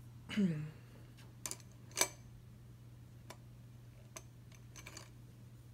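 Scattered light clicks and taps of makeup brushes and an eyeshadow palette being handled, the sharpest about two seconds in, over a faint steady low hum.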